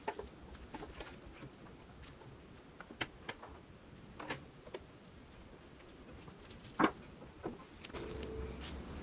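Small, sharp metal clicks and taps of needle-nose pliers working the grille's mounting tabs on a pressed-steel Tonka toy truck cab, the loudest click about seven seconds in. A low steady hum comes in near the end.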